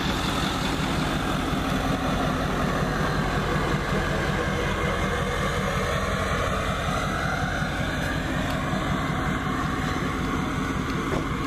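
Pickup truck engine idling steadily under a constant rushing hiss.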